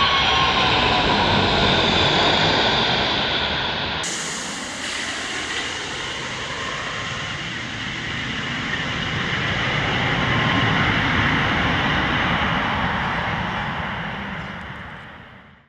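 Boeing 737 jet engines on short final passing low overhead: a whine falling in pitch over a steady roar. The roar dips, swells again, and fades out near the end.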